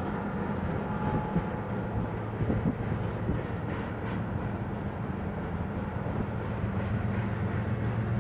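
Diesel-hauled freight train passing: a steady low engine drone from the locomotives with the rumble of rolling tank cars, and a few light knocks about two and a half seconds in.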